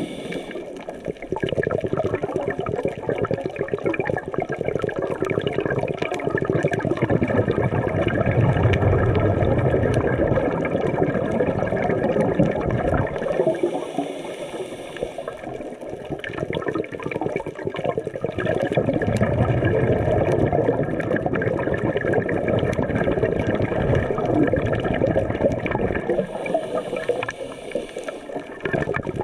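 A scuba diver breathing underwater in a slow cycle. The demand valve hisses on each inhale, near the start, midway and near the end, and a low gurgling rush of exhaled bubbles comes between them. Steady underwater crackling runs beneath.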